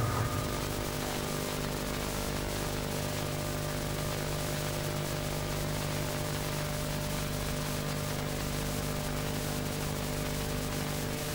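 Steady electrical hum with static hiss, unchanging throughout.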